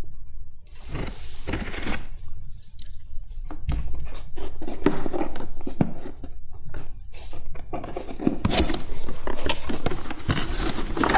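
A blade slitting the tape along a cardboard box, scratching and clicking, then the cardboard lid and flaps scraping and rubbing as they are pried open, getting busier and louder near the end.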